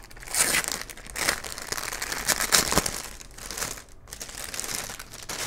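Clear plastic packaging bag crinkling in uneven bursts as hands open it and slide out the fabric pouch inside.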